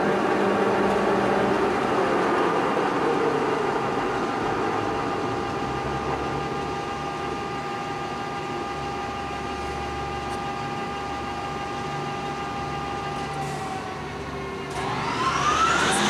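Poreba TR135B2 lathe headstock running under power, its spindle gearing giving a steady whine with several fixed tones. About a second before the end the pitch rises quickly and the running gets louder as the spindle speeds up in high gear on the two-speed motor.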